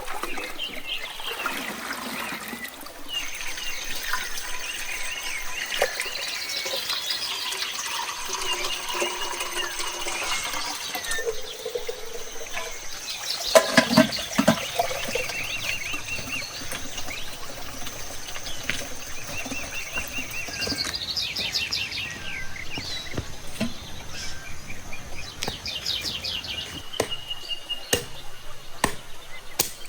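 Small birds chirping and calling on and off, with a louder, brief call about fourteen seconds in.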